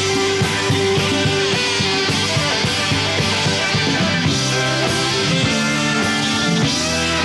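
Live rock band playing an instrumental passage, with electric guitars, keyboards and drums, at a steady full volume and without vocals.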